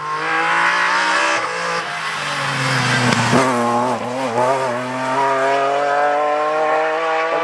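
Rally car engine at high revs as it comes past close by. Its pitch drops sharply about a second and a half in as the driver lifts off, dips again as the car passes about three seconds in, then climbs steadily as it accelerates away.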